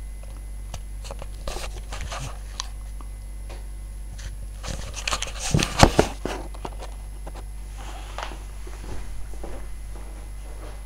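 Samsung WF9700N3W front-loading washing machine on its wool cycle, the drum turning slowly so the wet blankets flop over with sloshing and rustling, over a steady low hum. The loudest flop comes about five to six seconds in, with smaller ones before and after.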